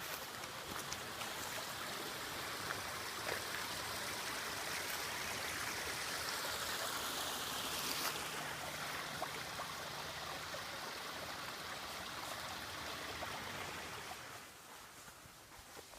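A small stream flowing steadily, a constant rushing and trickling of water, which fades quieter near the end.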